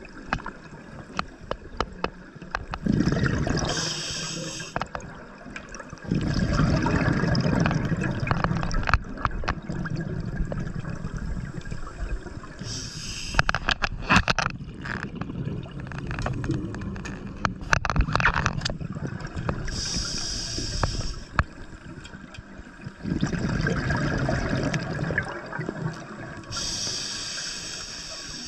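Scuba diver breathing underwater through a regulator: a short hiss on each inhale, four times, each followed by a long rumble of exhaled bubbles. A run of sharp clicks about halfway through.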